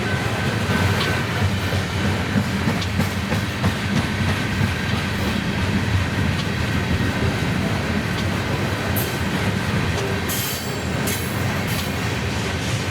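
Freight train rolling past: a steady rumble of wheels on rail, with a few short high-pitched screeches about two-thirds of the way through.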